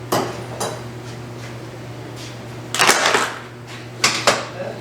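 Sharp clicks and clattering knocks of plastic trim clips being pried out of a steel bumper with pliers and channel locks, a few separate strokes with a louder cluster past the middle and another near the end, over a steady low hum.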